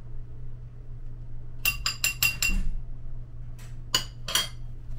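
Metal spoon clinking against a small bowl: a quick run of about five ringing taps a little under two seconds in, then two more about a second and a half later.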